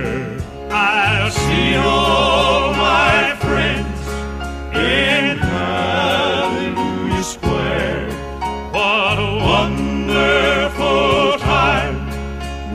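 A song: a singer holding long notes with a wide vibrato over steady low accompaniment.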